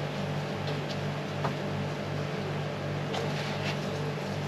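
Steady low mechanical hum, like a fan or motor running, with a few light clicks and rustles as a plant pot and cuttings are handled.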